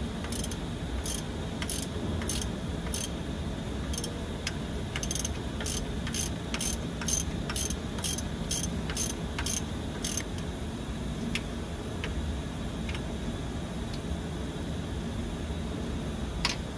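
Hand ratchet clicking in short, even strokes, about two to three clicks a second, as the injector hold-down bolts on an 8V92 Detroit Diesel head are run down. About ten seconds in the clicking thins to a few scattered clicks, with one sharper click near the end, over a steady low background hum.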